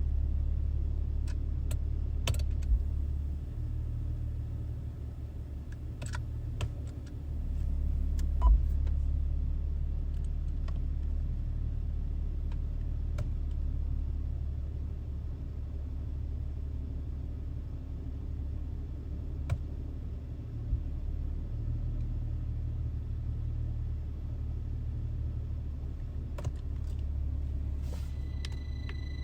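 BMW 330xi's 3.0-litre inline-six idling steadily, its low hum rising and falling in level as the automatic transmission is shifted through the gears, with scattered sharp clicks. A brief high beep sounds near the end.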